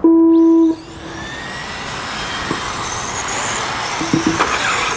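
Electronic race-start tone sounding once for under a second, then a pack of 1/10-scale electric touring cars pulling away, their 27.5-turn brushless stock motors whining and rising in pitch as they speed up.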